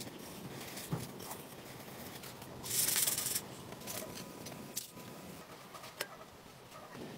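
Cooking sounds from a pan on a stove: small taps, scrapes and clicks of hands and utensils, with a short loud hissing rush about three seconds in.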